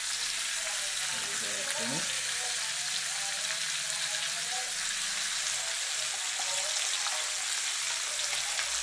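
Snapper pieces and vegetables sizzling steadily in a frying pan as chopped scallion, onion and thyme are tipped in.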